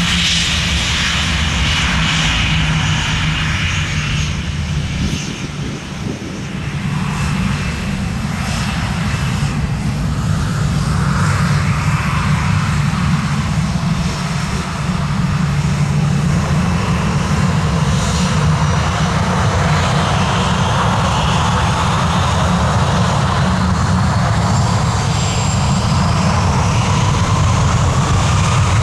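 Boeing 737's twin CFM56 turbofan engines running close by on the runway, a steady low rumble under a turbine whine. Over the second half the whine rises steadily in pitch as the engines spool up, typical of power being brought up for the takeoff roll.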